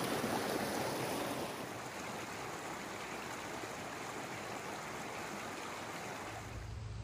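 Stream water rushing over rocks in a steady flow, a little louder at first and easing slightly about two seconds in. A low hum comes in near the end.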